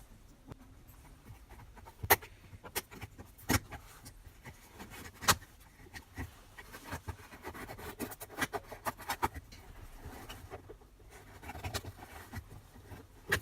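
Packaging and boxed radio parts being handled during unpacking: scattered sharp clicks and knocks, with three louder ones in the first half, then a quicker run of lighter clicks and handling noise.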